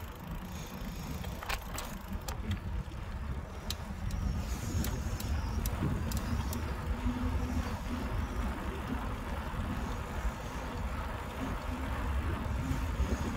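Wind rumbling on a handlebar-mounted phone microphone as a Carrera Kraken mountain bike rolls along a road, with a few light clicks and rattles scattered through the first half.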